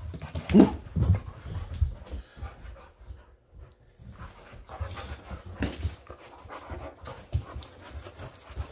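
Two puppies play-fighting: panting and scuffling of paws and bodies, with a short whine about half a second in.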